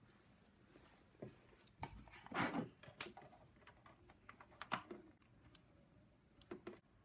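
Faint, scattered clicks of a laptop's touchpad and keys being pressed, with a brief rustle about two and a half seconds in.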